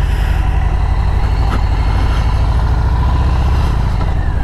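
Motorcycle engine running steadily under way, a low rumble with wind and road noise heard from the rider.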